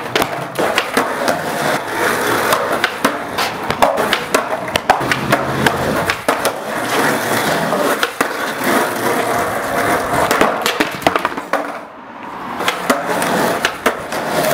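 Skateboard rolling on smooth concrete, its wheels making a steady rumble, with repeated sharp clacks of the tail popping and the board landing as the skater tries tricks. The rolling drops away briefly about twelve seconds in.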